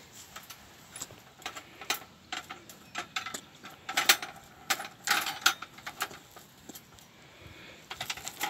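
Wire-mesh cage trap rattling and clicking irregularly as a trapped grey squirrel shifts about inside it, with a louder run of clatter about four to five seconds in.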